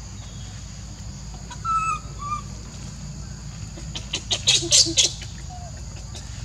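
Short high chirping calls about two seconds in, then a brief burst of rapid, harsh animal calls, the loudest sound, a little after four seconds, over a steady high insect drone.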